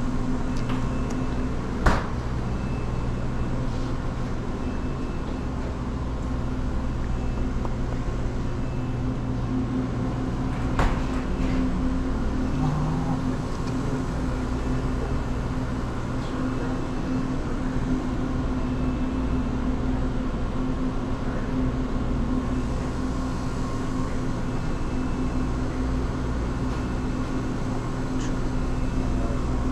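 Steady low machine hum, with a sharp click about two seconds in and another about eleven seconds in.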